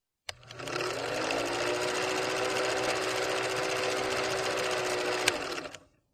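Microwave oven starting with a click and running with a steady hum, with one sharp click about five seconds in before it fades out.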